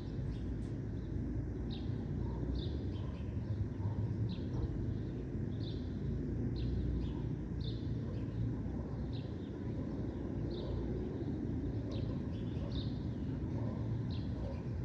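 A bird repeating a short, high chirp about once a second, over a steady low background rumble.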